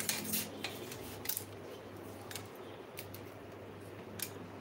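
Scattered light clicks and ticks, a few sharp ones clustered at the start and about a second in, over a steady low hum.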